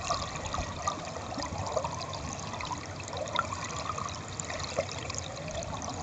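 Stream water flowing and gurgling, heard through a camera submerged in the stream: a steady rush with many small bubbling blips.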